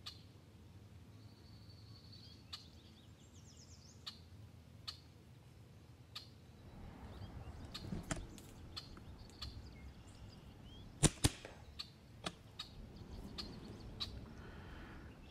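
Two sharp shots from a PCP air rifle fired as a quick double tap, about a fifth of a second apart, about eleven seconds in. Faint backyard ambience with scattered light ticks and a short bird chirp runs around them.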